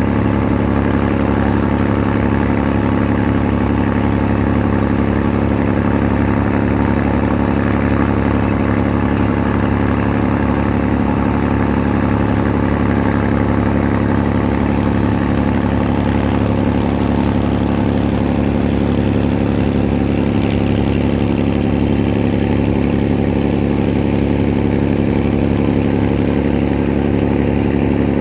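A ferry's engine running steadily: a constant low drone with an even hum that does not change in speed or loudness.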